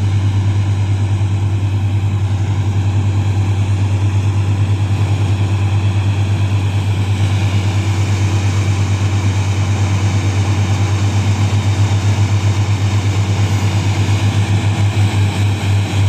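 Fiatagri (Laverda) combine harvester running in the field: a loud, steady, deep engine drone with a fast, regular pulse.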